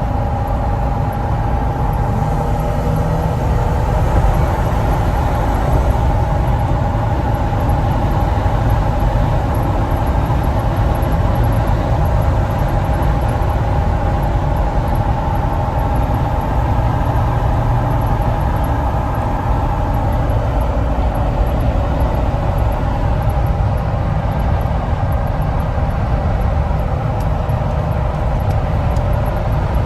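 Steady engine and road rumble of a 2017 Jeep Wrangler Unlimited Sahara (JKU), with a steady tone and a faint, regularly repeating high-pitched chirp running through it.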